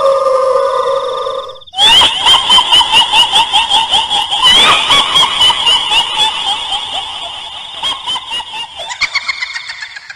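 A ghost sound effect: a drawn-out eerie wail breaks off, then a long high-pitched cackling laugh follows in rapid pulses and slowly fades.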